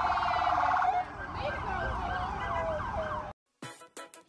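Emergency vehicle sirens in a fast warble that gives way about a second in to slower rising and falling sweeps from more than one siren. The sound cuts off abruptly near the end, and music with a regular beat starts.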